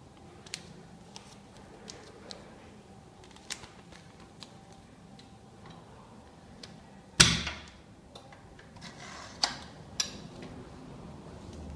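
Manual impulse heat sealer with cutting blade being worked. Light clicks and crinkles of plastic film are followed by one loud metal clack about two-thirds of the way in. A short scraping rasp ending in a knock comes next as the cutter slides along the jaw, then a click near the end.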